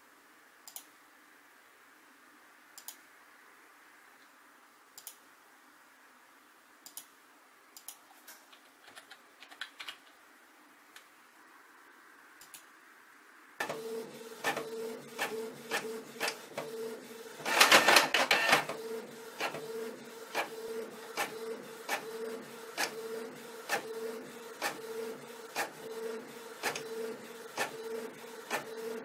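A few faint clicks, then, about halfway through, a Canon inkjet all-in-one printer printing a page. The print head shuttles back and forth with rapid clicks over a pulsing hum, and a few seconds after it starts there is a louder whir lasting about a second.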